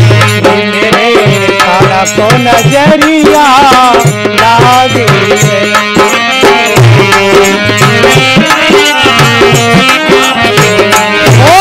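Instrumental interlude of folk devotional music: a harmonium playing a melody over a hand-played dholak rhythm, with small hand cymbals (manjira) jingling along.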